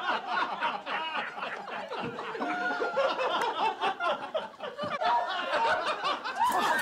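People laughing in a long stretch of repeated bursts.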